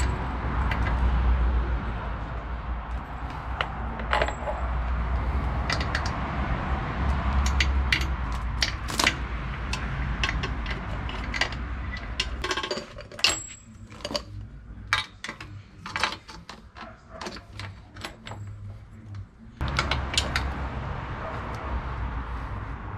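Metal roller drive chain being handled and laid out, its links clinking in many short, irregular clicks.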